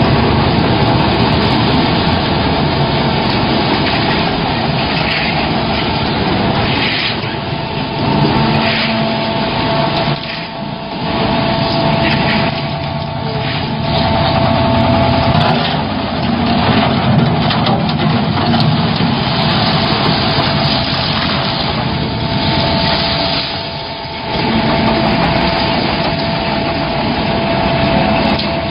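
Concrete mixer pump running: loud, continuous engine and machinery noise with a steady high whine over it, dipping briefly twice.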